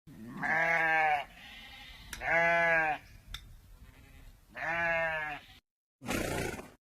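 Sheep bleating three times, each call under a second long, at a steady pitch. Near the end comes a short, noisy rustle-like sound.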